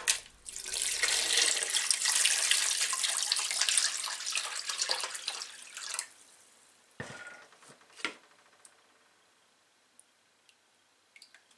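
Water poured from a plastic jug into a plastic bowl, a steady splashing pour that stops about six seconds in. Then two brief splashes as a hand moves in the water, and a few faint drips.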